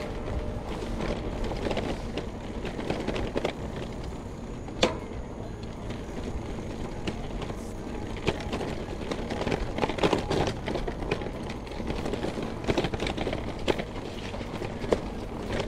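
Steady vehicle and road noise, with scattered short clicks and one sharper click about five seconds in.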